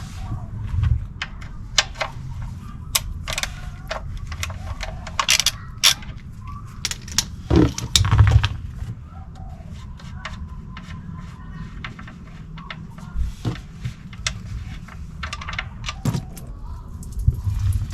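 Scattered metallic clicks and clinks of hand tools, a ratchet with a 14 mm socket and the steel drain plug, while the drain plug is undone from the oil pan for an oil change.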